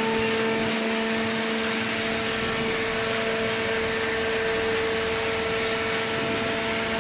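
Horizontal hydraulic waste paper baler running: a steady machine hum with a constant low whine and no knocks or changes.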